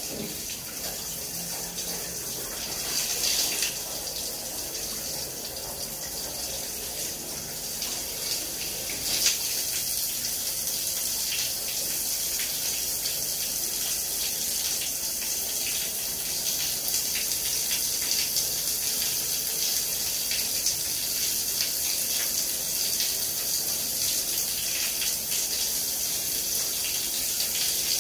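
Shower running: a steady hiss of water spraying and splashing onto a tiled shower floor.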